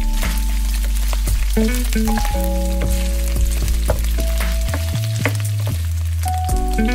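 Diced pork shoulder sizzling in its own rendered fat in a pan, with scattered pops, as a wooden spatula stirs it. Background music of long held notes over a low bass plays throughout.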